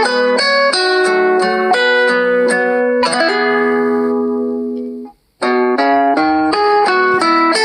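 Phone ringtone melodies in a plucked-guitar sound. The first tune runs through quick single notes and ends on a held chord that fades out about five seconds in. After a brief silence another tune begins.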